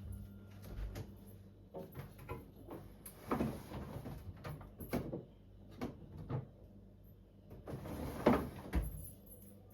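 Refrigerator drawers and shelves sliding and items being set down inside the fridge during restocking: a string of knocks, clunks and short scrapes, loudest about three seconds in and again about eight seconds in, over a faint steady low hum.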